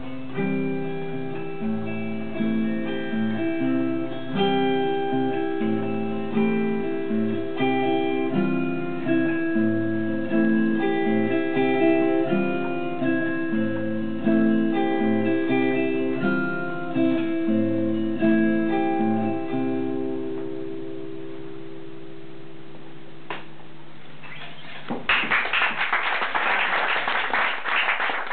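An electric guitar and an acoustic guitar play together, the last chords ringing out and fading about two-thirds of the way through. A small audience then claps for the last few seconds.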